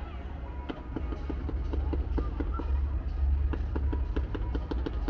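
Fireworks going off: a quick run of sharp pops and crackles, several a second, starting about a second in, over a steady low rumble.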